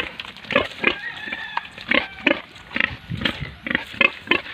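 Pig grunting repeatedly in short grunts, about three a second, as it comes up close.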